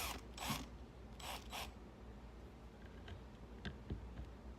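Cordless drill-driver driving a screw into plywood in four short bursts, one after another, followed by a few faint clicks.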